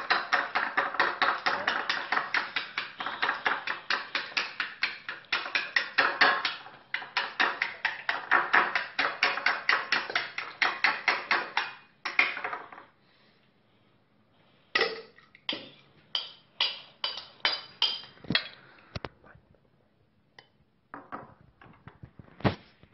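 Fork beating eggs in a ceramic bowl, clicking against the bowl about five times a second for roughly twelve seconds, then stopping. After a pause comes a slower string of clicks, and a few scattered knocks near the end.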